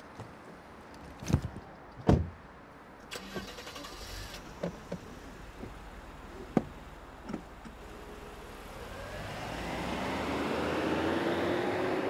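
Two heavy thuds from the Lexus sedan's door about a second in, then light clicks and knocks. From about two-thirds through, the car's engine rises in level and pitch as it revs up.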